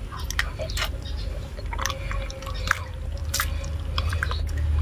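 Wet squelching, splashing and dripping as a large raw octopus is squeezed and kneaded by hand in a metal basin of water, in short irregular bursts.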